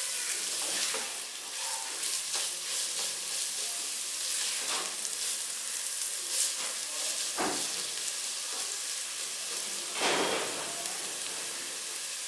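Shredded chicken, chopped capsicum and grated carrot sizzling in oil in a pan while a silicone spatula stirs and scrapes through them, with a few sharper strokes of the spatula.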